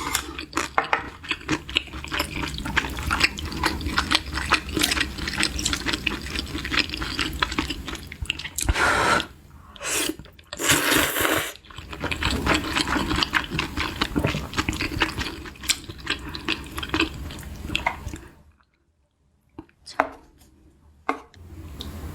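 Close-miked eating of a meal of kimchi udon and kimbap: rapid wet chewing and mouth clicks, with two loud slurps about nine and eleven seconds in. Near the end it goes almost silent, with only a few single clicks.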